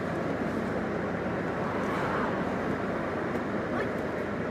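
Steady street and car noise: a running engine and passing traffic, heard as an even rumble.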